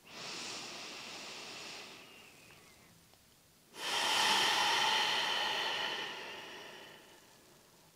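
A woman's deep yogic breath: a soft inhale lasting about two seconds, a brief pause, then a long, loud exhalation of about four seconds that fades away. The exhale is deliberately made loud, as a releasing breath.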